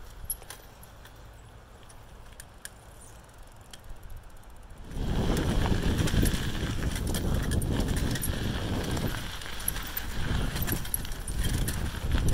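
Noise of someone travelling along a gravel forest trail, with crunching and rustling that starts abruptly about five seconds in and carries on as a rough, uneven rumble. Before it there is only a faint background with a few small ticks.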